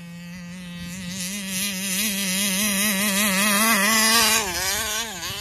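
A Taylor 35cc reed-valve two-stroke engine in an RC boat runs flat out. It grows louder as it comes closer, its pitch warbling rapidly up and down, then the pitch drops and the sound fades near the end. The warble is a flutter at full throttle that the owner blames on a faulty carburetor.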